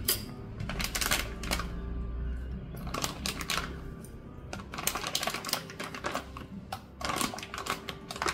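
Clear plastic fish pouch crinkling and rustling as a hand digs in and pulls out pieces of raw fish, in irregular crackling bursts. Faint music runs beneath.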